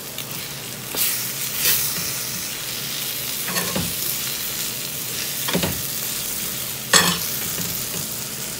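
Tuna sisig sizzling on a hot metal sizzling plate over a gas flame, while a spoon stirs it. The spoon scrapes against the plate about five times, loudest near the end.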